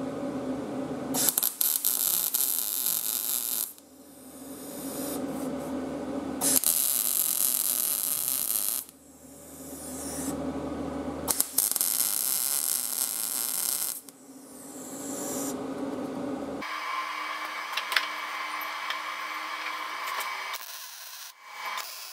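Wire-feed welder arc sizzling as it welds a 16-gauge sheet-steel patch onto a mower deck, in three separate runs of a couple of seconds each, then a longer steadier run.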